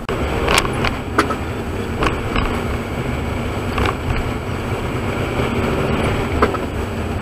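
Car driving along a town street, heard from inside the cabin: steady engine and road rumble. A handful of short, sharp clicks or knocks are scattered through it.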